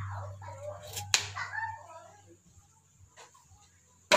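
Kitchen knife chopping carrot on a plastic cutting board: two sharp chops close together about a second in, a faint tap later, and a loud sharp knock near the end. Wavering voice-like sounds and a low hum run through the first two seconds.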